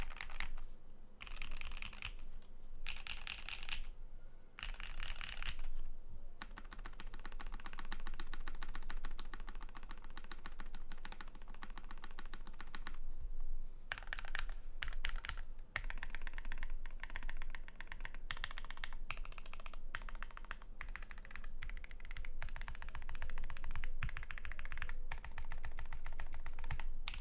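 Typing on a custom 60% mechanical keyboard with lubed Black Cherry Pie linear switches on an aluminum plate, with no foam inside the case. There are three short bursts of keystrokes, then fast, steady typing with one brief pause partway through.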